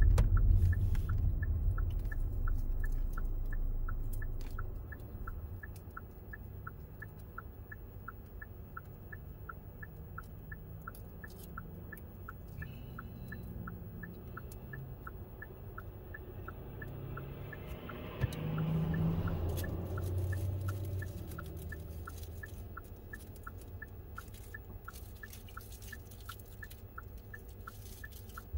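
Car's turn-signal indicator ticking steadily and fast while the car slows and sits stopped at idle; the tyre and road noise fades over the first few seconds, and another vehicle goes by about eighteen seconds in.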